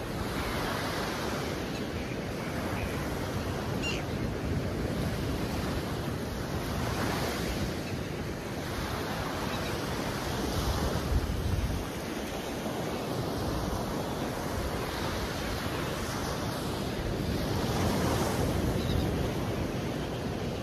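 Surf breaking and washing up the beach in repeated swells, with wind buffeting the microphone.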